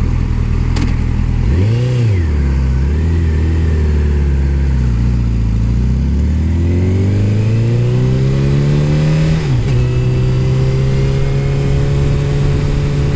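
Honda CBR1000RR (SC59) inline-four engine under way. The revs rise and fall briefly about two seconds in, then hold steady. They climb for about three seconds under acceleration and drop sharply at a gear change about nine and a half seconds in, then settle into a steady cruise.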